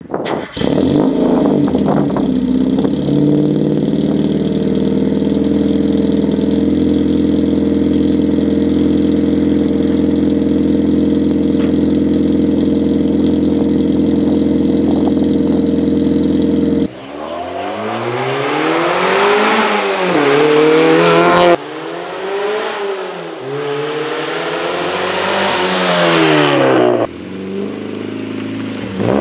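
A steady drone for about the first 17 seconds, then the Dodge Durango's engine revving hard, its pitch climbing and falling again and again, with abrupt cuts between clips.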